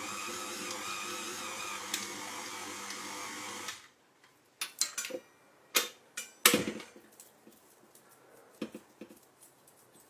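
KitchenAid stand mixer motor running steadily with a light whine as its dough hook kneads a stiff yeast dough, then switched off a little under four seconds in. After it stops come a few scattered clicks and knocks as the tilt head is raised and the dough is pulled off the hook.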